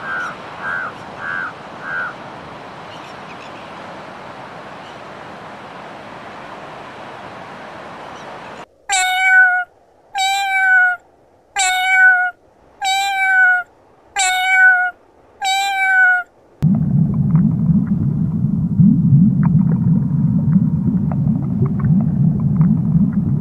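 A crow caws four times, about two a second, over a steady hiss. Then a cat gives six drawn-out meows about a second and a half apart. About sixteen seconds in this gives way to a steady low underwater rumble with faint crackles.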